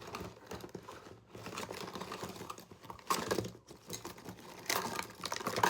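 Light, irregular clicks and taps of small hand tools being handled, with a little rustling.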